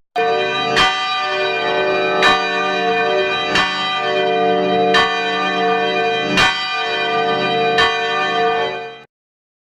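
Church bell ringing, struck about every second and a half, its tone sustained between strikes. The sound cuts off suddenly near the end.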